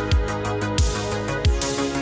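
Background music with a steady kick-drum beat, about three beats every two seconds, with ticking hi-hats over held synth chords.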